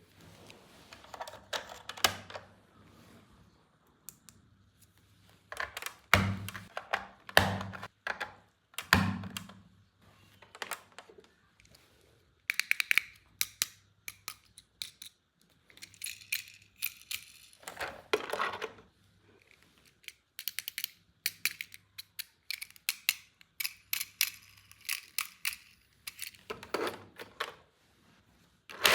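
Toys and their packaging being handled: an irregular run of clicks, taps and rustles, with a few louder knocks.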